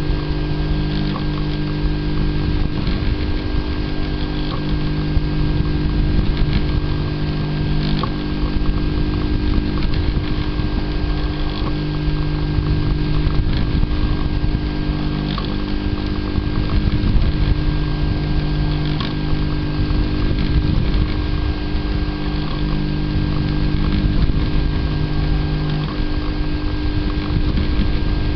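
DIY Prusa i3 replica 3D printer at work: the stepper motors whine, their tone shifting and switching on and off every second or two as the print head moves back and forth, over a steady hum.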